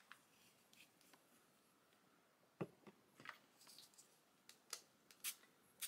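Near silence: quiet room tone with a few faint clicks and taps in the second half, as small plastic paint bottles are handled.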